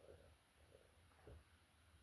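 Near silence in a small room, with a few faint soft sounds and one brief low thump about a second and a quarter in.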